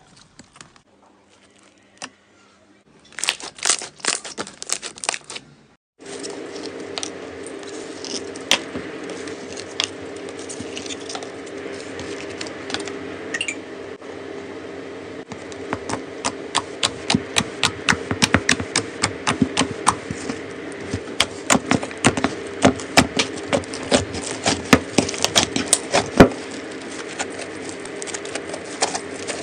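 Slime being squeezed, stretched and pressed by hand, making rapid sticky clicks and pops. Faint at first, with a short burst of crackling clicks about three seconds in; after a cut about six seconds in a steady low hum runs underneath, and the pops come thick and fast from about halfway on.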